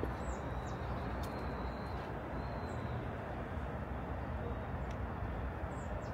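Steady outdoor city background: a low traffic rumble that never lets up, with a few faint, short high chirps from birds.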